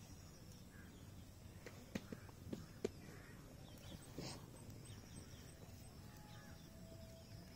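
Quiet outdoor background with a few faint, short clicks and taps about two to three seconds in and again about four seconds in.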